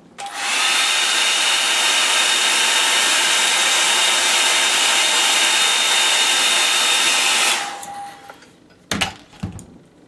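Hand-held hair dryer blowing onto wet watercolour paper to dry the paint: it comes on at once, runs steadily with a faint whine over its rush of air, and is switched off about seven and a half seconds in, its whine fading as it winds down. A few knocks follow near the end.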